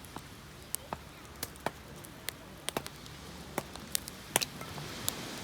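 Wood campfire crackling: irregular sharp pops of varying strength over a steady hiss.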